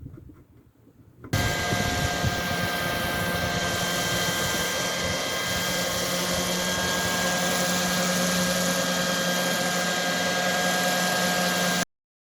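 An electric power tool's motor runs steadily at constant speed, with a strong hum under several steady higher whines. It starts abruptly about a second in and cuts off abruptly near the end.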